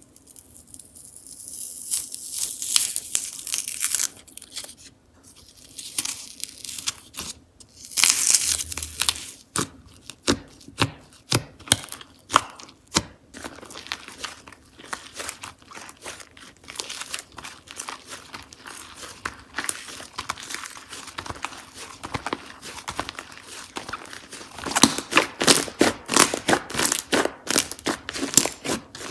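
Slime being stretched, pulled apart and squished by hand, making sticky tearing sounds with many sharp little pops and clicks. The clicks come thick and fast over the last few seconds.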